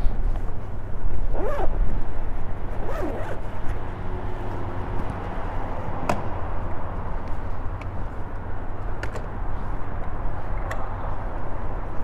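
Wind buffeting a chest-mounted camera's microphone as a steady low rumble, with some rustling near the start and a few sharp clicks later on.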